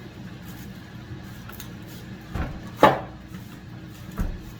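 Knocks and thumps from handling the unboxed ice maker: a dull thump about two and a half seconds in, a sharp knock just after it (the loudest), and another dull thump near the end.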